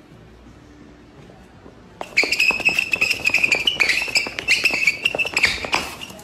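A dog playing ball on a concrete floor: many sharp knocks of the ball and scrambling feet, with a high, slightly wavering squeal held through most of it and broken a few times. It starts about two seconds in.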